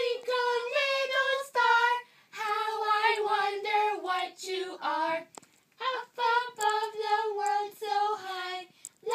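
Young women singing a children's song together in high, childlike voices, without instruments, in phrases of held notes with short breaths between them.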